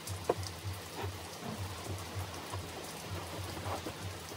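Rain pattering steadily, a dense haze of small drop ticks, with a faint low beat of music pulsing about three times a second underneath.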